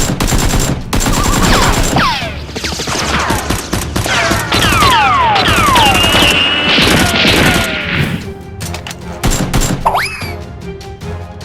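Action-film style sound effects over music: a rapid burst of gunfire, then many overlapping falling whistles and a quick rising sweep near the end.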